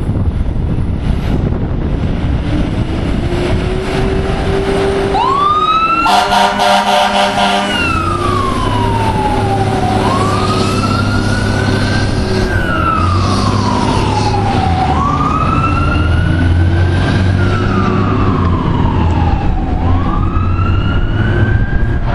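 Fire truck responding: its diesel engine rumbles, then about six seconds in its air horn blasts for close to two seconds, and the siren wails, sweeping up quickly and falling slowly in repeated cycles about every five seconds.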